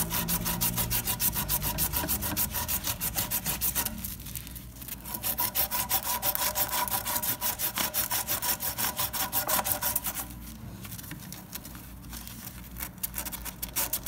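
Strip of sandpaper pulled back and forth around a copper refrigeration suction pipe, rasping in quick, regular strokes, several a second, with a couple of brief lulls. The pipe is being cleaned bright before brazing.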